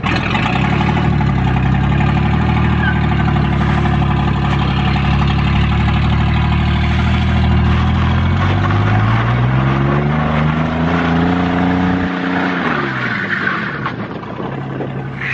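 The high-mileage engine of a 2000 Chevy single-cab pickup, its exhaust just bolted back on, running as the truck pulls away. It is steady at first, then the revs climb for a couple of seconds starting about eight seconds in, hold, and drop back about four seconds later.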